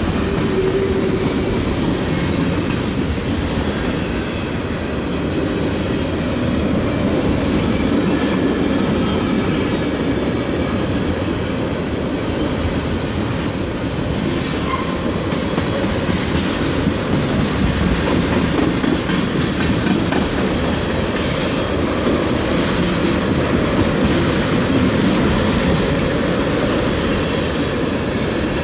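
Freight train of tank cars rolling past close by: a steady rumble of steel wheels on the rails that keeps up without a break.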